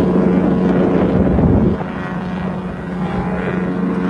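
A cruise ship's horn sounding one long, steady low blast over a rushing noise that is loudest in the first two seconds.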